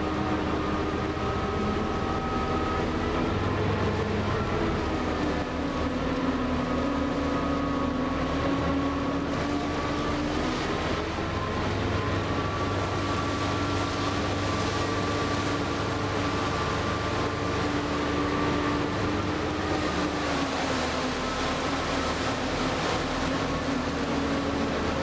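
Passenger boat's engines running with a steady drone heard from the open deck. Its pitch dips slightly about five seconds in and again near the twenty-second mark, between small rises.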